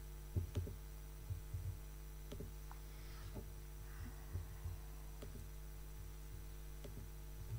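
Steady low electrical mains hum in the sound system, with faint low knocks and clicks every second or so.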